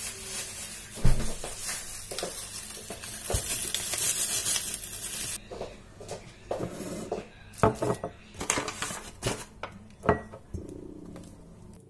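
Kitchen clatter of bowls and utensils knocking and clinking on a stone countertop, including a small ceramic bowl being set down. A steady rushing hiss runs through the first five seconds and cuts off suddenly, followed by a run of sharp knocks and clinks.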